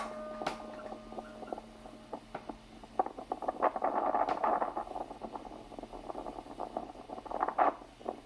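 A tower bell's hum fades out in the first second, then comes an irregular run of light knocks, clicks and rattles, busiest in the middle and again near the end.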